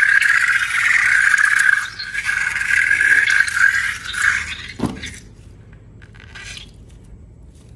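A steady scraping rub for about four and a half seconds, then a single knock about five seconds in.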